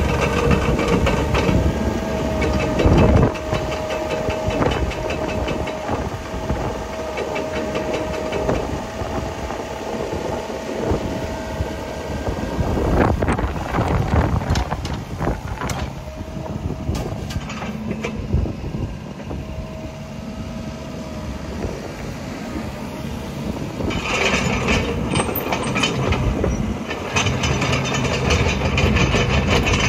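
Kubota KX155-3SZ midi excavator's diesel engine running as the machine travels on its rubber tracks, the tracks clattering with many clicks. A steady whine comes and goes over the engine sound.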